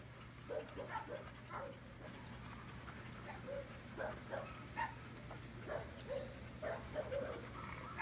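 A dog barking over and over in short, quick barks, about two or three a second, fairly faint, over a steady low hum.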